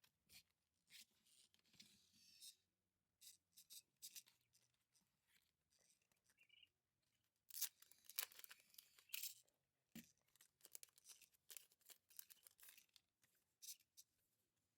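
Faint rustling and ticking of packaging and paper items being handled during an unboxing, with a louder stretch of rustling about halfway through.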